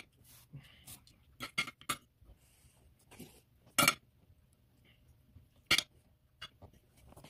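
Fork clinking against a plate while eating: a handful of sharp, irregular clinks, the loudest about four seconds in and just before six.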